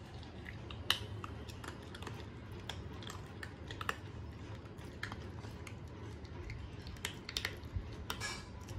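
A Shih Tzu chewing a crunchy chicken-and-ginger dog treat: faint, irregular crunching clicks.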